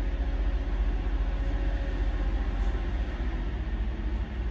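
Semi-truck diesel engine idling, a steady low rumble heard from inside the cab.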